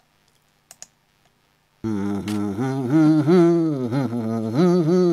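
Near quiet with a couple of faint clicks, then about two seconds in a voice starts humming a wavering tune, unbroken and sliding up and down in pitch.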